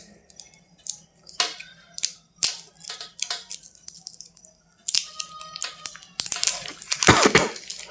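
Hands unpacking a boxed Bluetooth neckband: scattered clicks and taps of cardboard and plastic parts, then a louder stretch of packaging rustle near the end.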